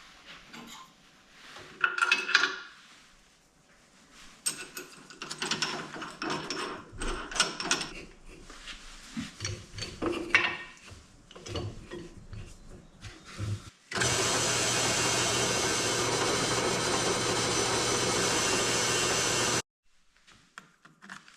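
Clicks and rattles of tools being handled. About fourteen seconds in, a power drill runs steadily for about six seconds and then cuts off suddenly, boring a 15/64-inch hole into a black walnut blank for a bottle stopper's threaded stud.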